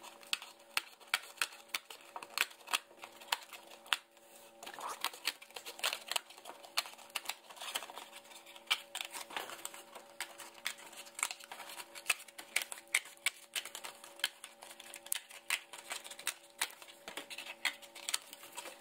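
Scissors snipping through the thin cardboard of a cereal box, an irregular run of sharp snips, a few a second, as the side openings are cut.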